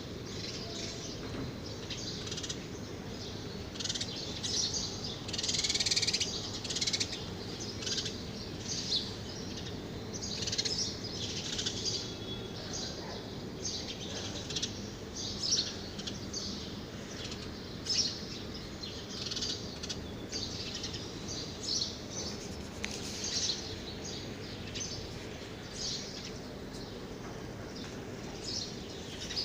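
Small birds chirping repeatedly, many short high calls scattered throughout, over a steady low background rumble.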